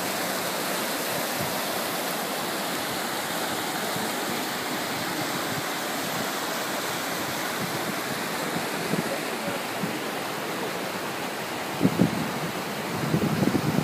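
Steady rush of running water: hot spring runoff pouring over a rock edge into a river. A couple of brief low bumps near the end.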